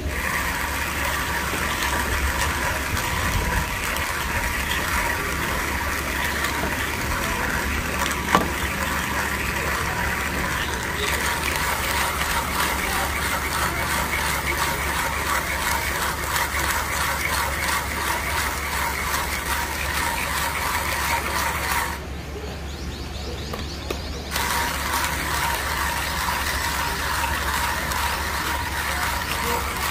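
1Zpresso hand coffee grinder grinding beans: a steady gritty crunching from the burrs as the handle is cranked. A single sharp click comes about 8 seconds in, and the grinding stops briefly about 22 seconds in before resuming.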